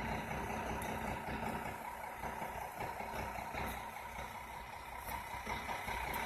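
Fire trucks' diesel engines idling, a steady low rumble with a faint steady hum over it.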